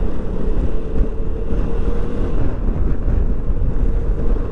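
Wind rushing over the microphone as a Yamaha XMAX 300 scooter is ridden along, its single-cylinder engine running steadily underneath.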